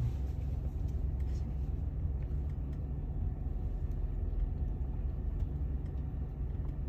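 Steady low rumble of a car's engine and tyres heard from inside the cabin while the car is driven.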